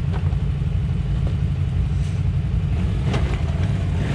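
Off-road vehicle engine idling: a steady low rumble.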